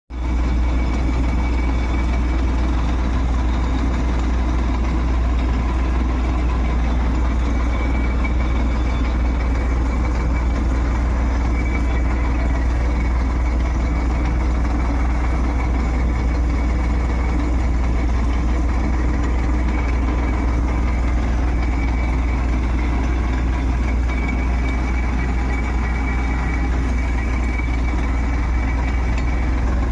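Tata Ace Gold mini-truck engine idling steadily, with a faint high whine that comes and goes.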